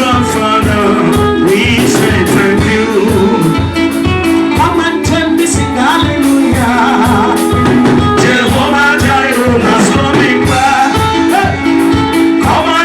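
Gospel song: a singing voice with wavering melodic lines over held instrument chords and a steady, quick drum beat.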